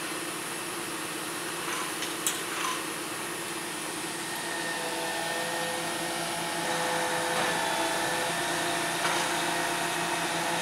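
A shingle delivery truck's engine and the hydraulics of its truck-mounted knuckle-boom crane run steadily as the boom is raised. Higher whining tones join about four seconds in, and there is one sharp click a couple of seconds in.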